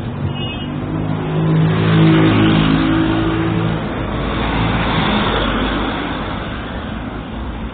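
A motor vehicle passing by. Its engine hum builds over the first couple of seconds, then gives way to a rush of road noise that peaks about five seconds in and fades away.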